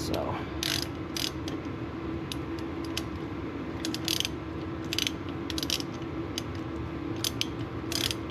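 Ratchet wrench clicking in short, irregular runs while the brake caliper's mounting bolts are run in.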